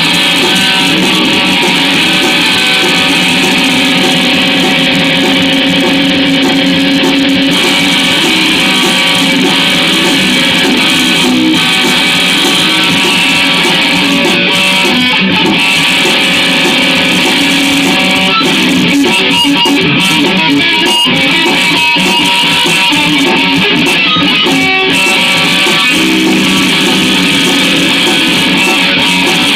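Guitar-led music with no singing: an instrumental break in the song, the guitar played over a steady backing.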